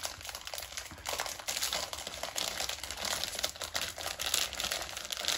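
Plastic KitKat Gold chocolate wrapper crinkling in the hands as it is opened, a continuous run of small irregular crackles.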